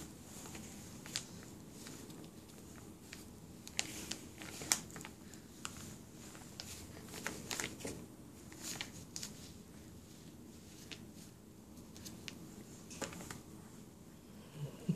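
Quiet sounds of a baby being spoon-fed puréed squash: scattered soft clicks and wet mouth sounds from the spoon and the baby's lips, a few of them sharper, at irregular moments.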